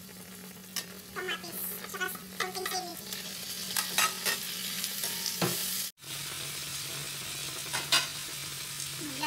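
Sliced tomatoes sizzling in hot oil in a wok as they are stirred in with a wooden spatula, which scrapes and knocks against the pan now and then. The sound cuts out for a moment about six seconds in.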